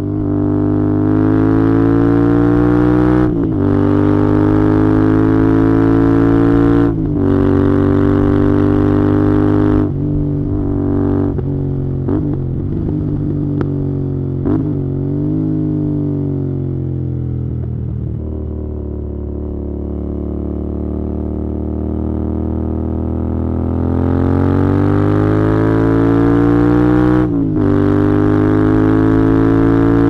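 Royal Enfield Interceptor 650's 648 cc parallel-twin engine and exhaust on the move. It pulls up through the gears, with pitch drops at three upshifts in the first ten seconds. It then falls in pitch with a few short blips as the bike slows, runs low for several seconds, and rises again with another upshift near the end.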